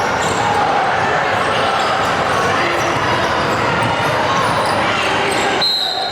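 Basketball game in a gym: a ball bouncing on the hardwood under a steady din of spectators' voices and shouting. The din drops suddenly near the end.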